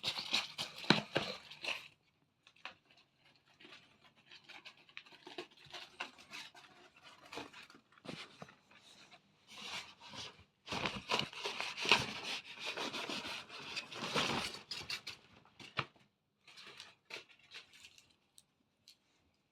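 Cat tunnel rustling and scraping in irregular bursts as a cat plays with it, loudest near the start and again for several seconds past the middle, with small ticks and scratches between.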